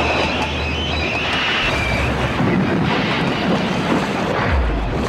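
Loud, rushing, rumbling crash-and-splash sound effect of a toy steam engine plunging off the line into the sea, with a brief high squeal about a second in.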